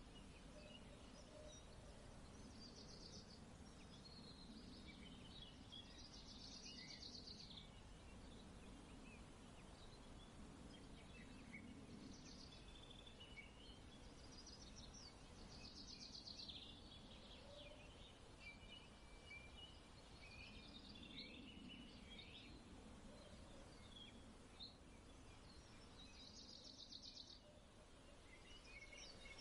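Faint outdoor ambience with small birds chirping and twittering on and off over a low, steady background hum.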